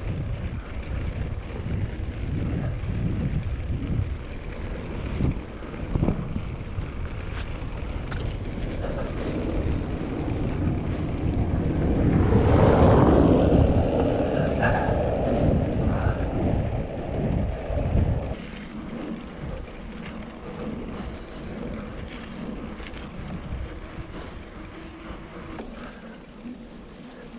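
KTM Ultra Fire 27.5 mountain bike rattling and juddering over cobblestones, with many small knocks and wind on the microphone, and a louder rushing swell about halfway through. About two-thirds of the way in, the sound drops to quieter tyre noise on a leaf-covered forest dirt track.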